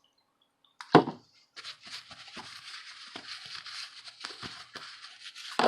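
Flux sizzling and crackling under a soldering iron tip as solder is melted on a circuit board, a steady hiss with small ticks. A sharp knock comes about a second in, and another near the end.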